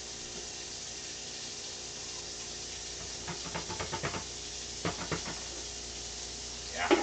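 Hot water running steadily from a kitchen tap, with a few light clinks and knocks of a metal pan and lid partway through.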